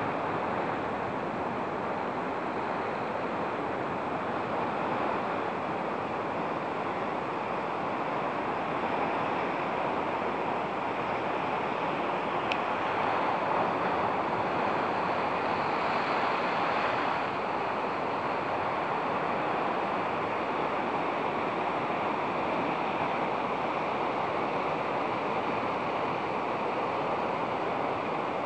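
Steady rushing of sea and wind at the shore, swelling slightly about halfway through.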